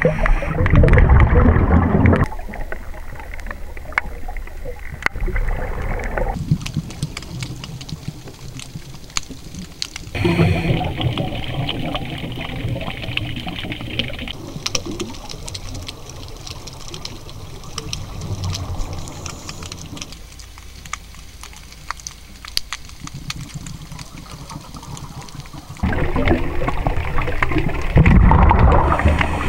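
Scuba diver breathing through a regulator underwater: three long, loud stretches of rumbling, bubbling exhalation (at the start, about ten seconds in, and over the last few seconds), with quieter hissing inhalations between them, over a faint steady crackle of clicks.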